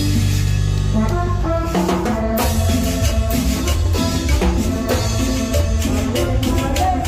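Live cumbia band music, with a drum kit and percussion driving a steady beat under bass and melody.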